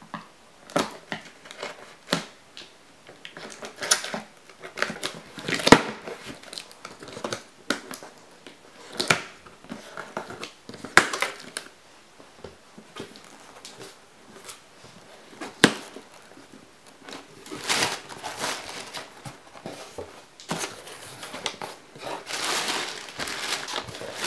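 Scissors cutting the packing tape on a cardboard shipping box and the cardboard flaps being handled, heard as irregular sharp snips and crackles. About two-thirds of the way through, these give way to denser rustling and crinkling of packing paper and tissue paper as an inner box is lifted out.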